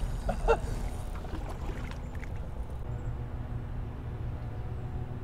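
Steady low outdoor rumble with a faint hum, like wind on the microphone or distant traffic.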